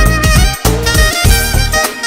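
Loud music: a moving melody line over a heavy, regular bass beat.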